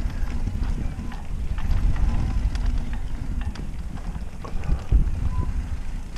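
Mountain bike riding fast along a dirt singletrack: wind buffets the microphone and the tyres rumble over the trail, with scattered clicks and rattles from the bike and a heavier knock about five seconds in.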